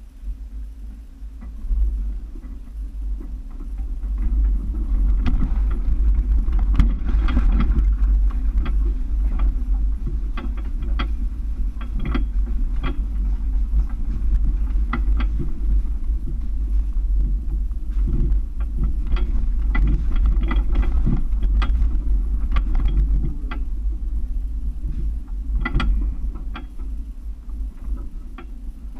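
A Toyota FJ Cruiser crawling over a rocky creek bed, heard from its hood: a steady low engine and driveline rumble under many sharp knocks and clicks as the tyres roll over loose rocks and the body jolts.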